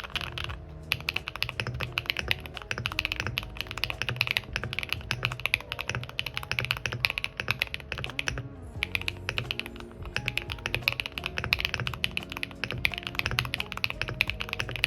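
Fast, continuous typing on a Zen65 custom mechanical keyboard with an aluminium plate and a brass weight: a dense run of keystroke clacks. Background music plays under it.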